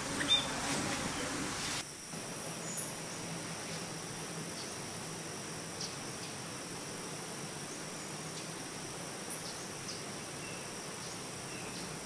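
Steady high-pitched insect drone, like crickets, in two high pitches, with a few faint short bird chirps scattered through it. In the first two seconds, before the sound changes abruptly, there is a hiss with a single short chirp from budgerigars.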